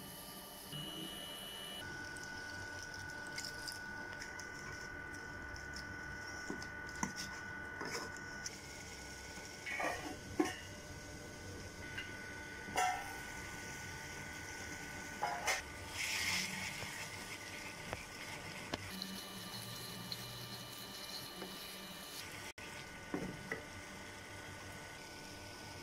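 Cooking in a wok on a stovetop: scattered knocks and scrapes of a spatula and a steel lid against the pan, over a steady hum with faint high steady tones.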